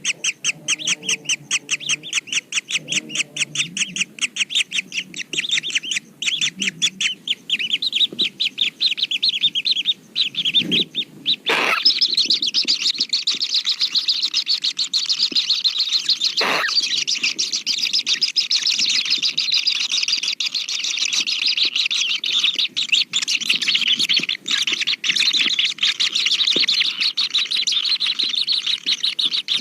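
Kingfishers calling: a fast, even run of high chirps, about ten a second, that turns into a dense, continuous chirping about twelve seconds in. Two sharp knocks break in, the first about eleven seconds in.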